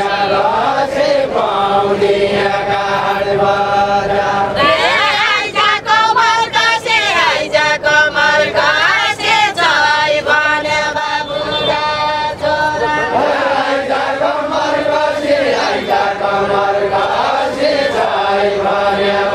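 A group of voices singing a Nepali deuda folk song together in a chant-like unison, with long held notes. About five seconds in, the line turns more ornamented and wavering for a few seconds before it settles back.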